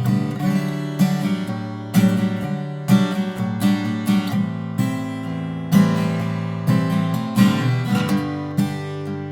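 Martin X Series Special steel-string acoustic guitar with a koa-pattern high-pressure-laminate body, played as strummed chords that ring on, with an accented strum about once a second.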